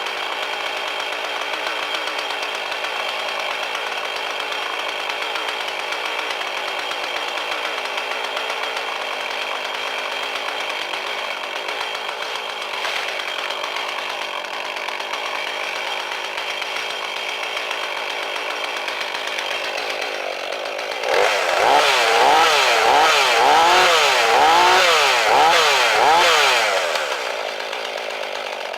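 Husqvarna 445 two-stroke chainsaw running at a steady speed, then about two-thirds of the way through throttled up louder, its pitch wavering up and down for several seconds as it cuts into the log, before easing back near the end.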